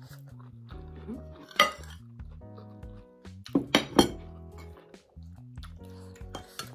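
Metal spoon clinking against a ceramic serving bowl and plate: one sharp clink about a second and a half in, then a quick run of several clinks around four seconds in, over soft background music.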